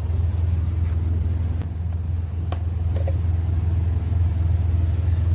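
Steady low drone of a running motor, with a faint clink of metal about two and a half seconds in and another about half a second later.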